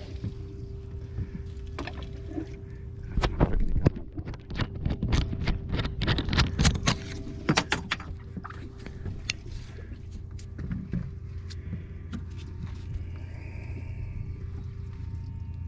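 Boat's motor running with a steady low hum, under a run of sharp clicks and knocks from about three to eight seconds in.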